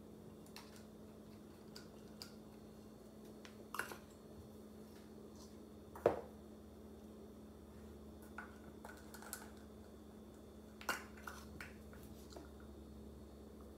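Scattered light clicks and taps of a measuring spoon against a baking powder can and a glass bowl of flour as baking powder is scooped and levelled. The sharpest knock comes about six seconds in.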